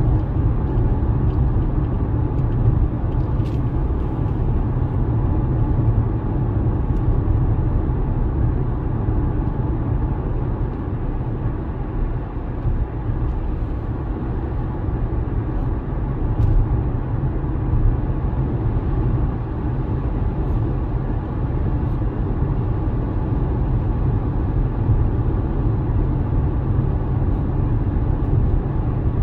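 A car being driven: a steady low rumble of engine and tyre noise that holds at an even level throughout.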